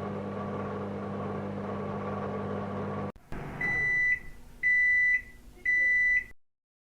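Microwave oven running with a steady hum that stops about three seconds in, followed by three high beeps about a second apart signalling the end of the heating cycle.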